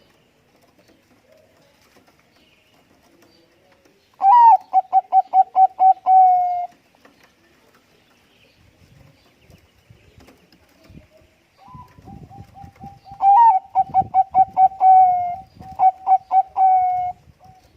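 Perkutut bangkok (zebra dove) cooing in two bouts. Each bout is a fast run of short, even coo notes that ends in a longer drawn-out note. The first bout comes about four seconds in, and the second starts near twelve seconds and runs longer, with faint low thumps beneath it.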